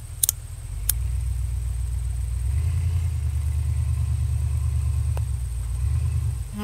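Engine of a Halo Warthog replica off-road vehicle running as a low rumble that grows louder about two and a half seconds in. Two sharp clicks in the first second.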